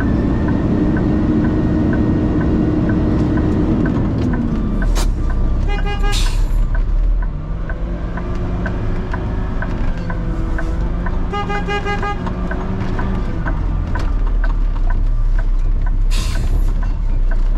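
Heavy truck's diesel engine running steadily under a regular light ticking, about three ticks a second. A pulsing beep sounds briefly about six seconds in and again for about a second near the middle. Two sharp hisses of released air, like air brakes, come about six seconds in and near the end.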